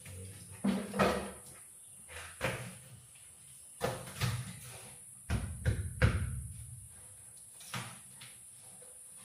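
A string of irregular knocks and bangs, about nine spread over several seconds, some with a short ringing tail, the loudest about six seconds in.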